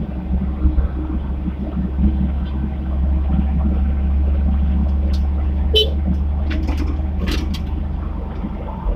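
Komatsu PC75 mini excavator's diesel engine running, swelling louder through the middle as it works, with a few short sharp knocks about halfway through.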